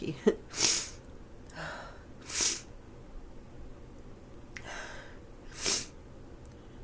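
A woman with a cold sneezing three times in a row, with gasping in-breaths before the second and third sneezes.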